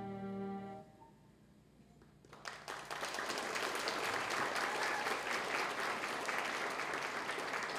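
A held music chord ends about a second in. After a short pause, an audience breaks into steady applause.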